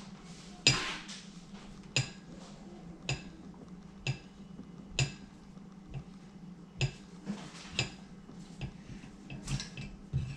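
Metal tools and valve parts clinking and tapping against a Norton Commando cylinder head during valve assembly: about ten short, sharp metallic clinks roughly a second apart, the first the loudest.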